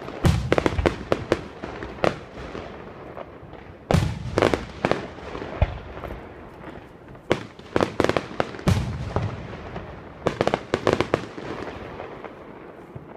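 Aerial fireworks shells bursting, with a few deep booms (near the start, about four seconds in and near nine seconds) among clusters of sharp crackling pops. The pops thin out toward the end.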